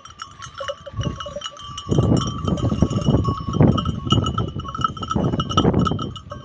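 Bells on grazing sheep clinking and ringing irregularly. From about two seconds in, a louder rough, low rustling noise comes in uneven surges over the bells.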